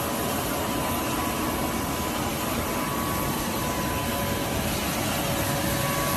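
Steady whine and rumble of a parked private jet running on the apron: two constant tones held over a low, even rumble.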